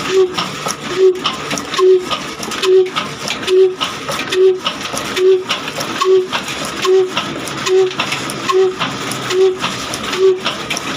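Old Ruston Hornsby diesel engine running steadily, its big flywheels turning, with a regular heavy beat a little over once a second, each beat carrying a short ringing tone over a constant mechanical clatter.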